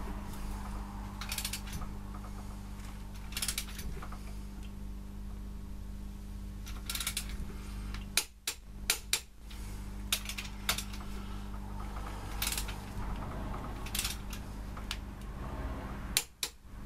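Scattered metallic clicks and short ratcheting bursts from a torque wrench as the main bearing cap bolts of an Austin A-series 1098cc engine are tightened. The clicks are irregular, with a quick cluster about eight seconds in and another near the end. A steady low hum runs underneath.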